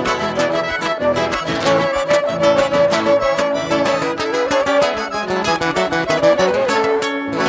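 Live gaúcho folk dance music from a band with accordion: a lively, evenly beaten tune with a bright melody on top. About seven seconds in, the beat stops and the band holds a final chord.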